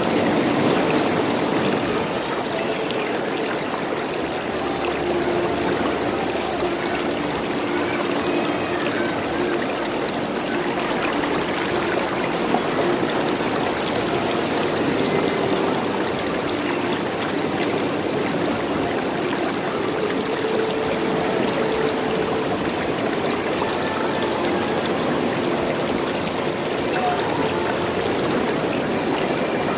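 Running water gurgling and trickling steadily, with many short bubbling notes over a constant rush.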